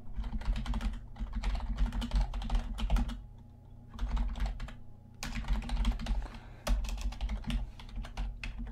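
Typing on a computer keyboard: quick runs of key clicks, with a short pause about three seconds in, over a low steady hum.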